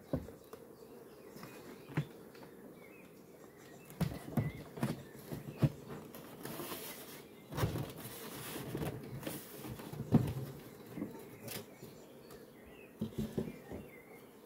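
Knocks, clunks and rustling of plastic and foam hive parts as a beehive's inner cover and lid are handled and lifted off, the loudest knock about ten seconds in, with a scraping rustle in the middle. A faint buzz of bees lies underneath.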